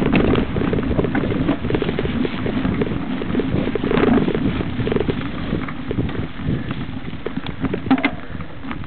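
Mountain bike riding over a dirt woodland trail: tyre noise with a steady clatter of rattles and knocks as the bike goes over bumps, and wind buffeting the microphone.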